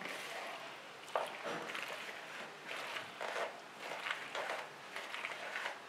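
A spoon stirring and tossing boiled macaroni, potato cubes and chopped vegetables in a blue plastic bowl, in repeated short scraping strokes about two a second.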